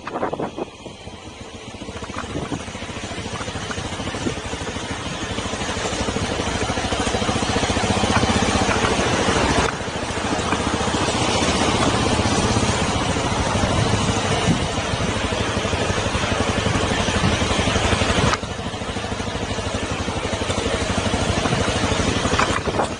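Honda CRF250 Rally's single-cylinder engine running under way, with wind rushing over the microphone. The sound grows louder over the first several seconds, then drops suddenly twice, about ten and eighteen seconds in.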